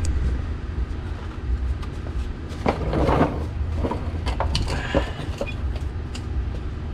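Hand-tool work on the fasteners of a car's rear diffuser: scattered clicks and knocks, with a short scraping rustle about three seconds in, over a steady low rumble.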